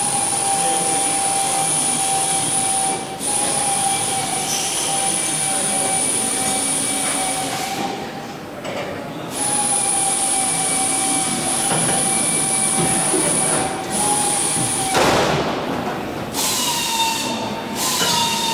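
A workshop power tool whining at a steady pitch, with a short break about three seconds in and a longer one of about a second near the middle. Near the end comes a brief rush of noise, then a slightly higher whine.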